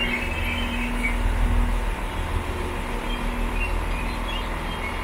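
Northern Class 195 diesel multiple unit drawing slowly along the platform and coming to a stand, with a steady low rumble of engine and wheels. A humming tone in the rumble fades out about two seconds in.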